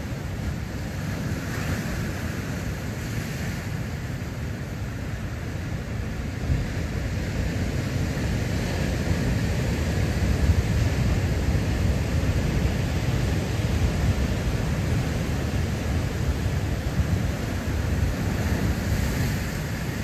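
Big surf breaking against a lava-rock shore: a steady rush with a deep rumble, growing louder about six seconds in, with wind buffeting the microphone.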